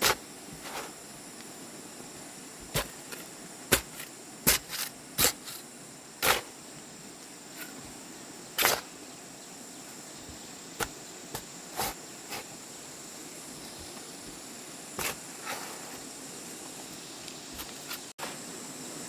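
Irregular sharp knocks and taps, some in quick pairs, from hand work with tools or objects. Under them runs a steady high-pitched insect drone.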